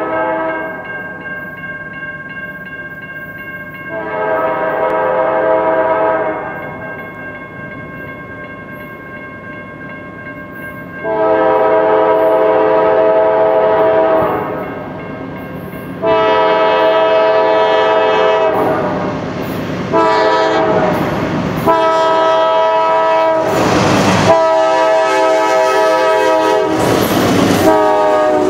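CSX freight locomotive's multi-note air horn sounding a series of long blasts as the train approaches. The blasts grow louder and run almost without a break near the end, as the locomotives pass with the rush and rumble of the engines and wheels.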